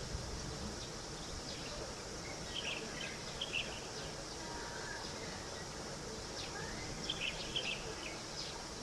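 Outdoor ambience: a steady background hiss with short, high bird chirps, in small clusters about two and a half seconds in and again around seven seconds.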